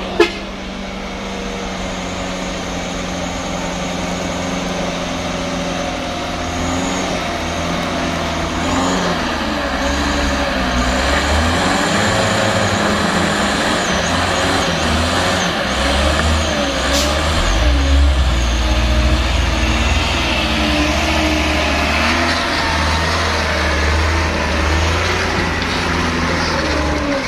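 Loaded diesel truck engine labouring up a muddy slope, its low rumble growing louder as the truck approaches and passes close by, with the engine note rising and falling.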